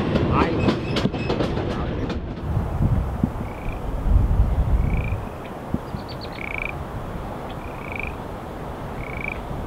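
Train wheels clicking rapidly over the rail joints for about the first two seconds. Then a steady rushing outdoor background with a low rumble around four seconds in, and a short rising chirp repeated about every second and a half, about five times.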